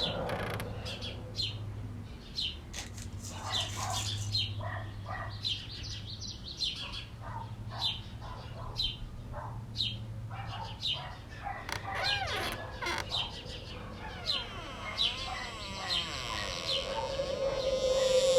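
Birds calling: a long run of short, sharp chirps and peeps with some arching calls. A steady humming tone swells in near the end.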